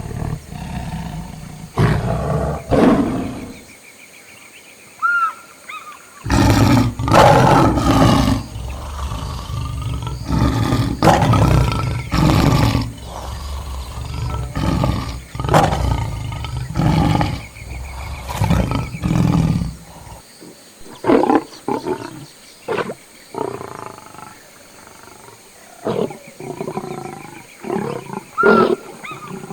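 Lions roaring and growling: a series of loud, rough calls, densest from about six to twenty seconds in, then shorter, sparser ones.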